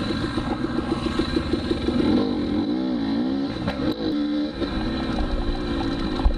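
Dirt bike engine running and revving, its pitch swinging up and down in long rises and falls near the middle. The sound changes suddenly about four seconds in, then the engine runs on steadily under way.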